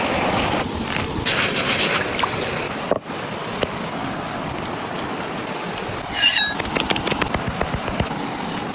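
Chicken sizzling over an outdoor cooking fire: a steady hiss with scattered crackles and pops. The hiss drops out briefly about three seconds in, and a short high squeal comes about six seconds in.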